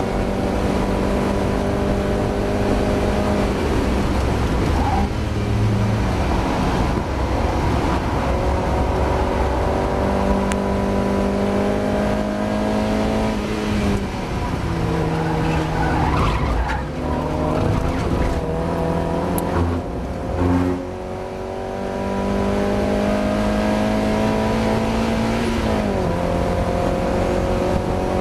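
Mazda MX-5 four-cylinder engine racing on track, heard from the car. The pitch climbs under acceleration and drops at each of several gear changes, with a brief lift off the throttle about two thirds of the way through.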